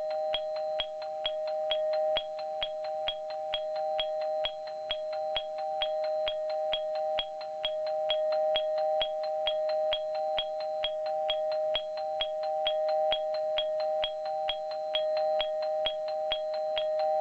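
JNR BZ21-type ATS warning chime (type 7S, for electric trains) sounding continuously. Its hammer strikes the tone bars in a steady, quick run of two or three strokes a second, and the two tones ring on between strikes. The pace is a little faster than stock because its capacitor has been replaced.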